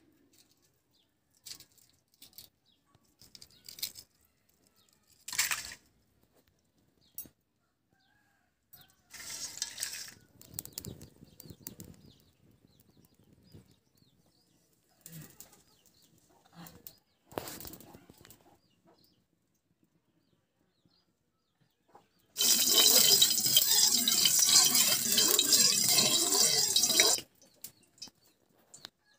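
Scattered knocks and clatters of handling, then a loud sizzle in a hot kadai over a wood fire for about five seconds near the end, starting and stopping sharply.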